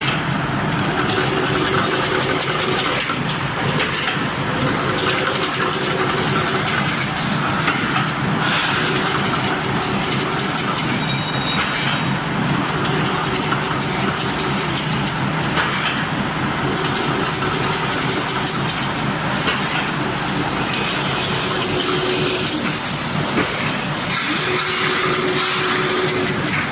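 Automatic double-wire chain link fence machine running steadily as it weaves wire into diamond mesh, a continuous mechanical din.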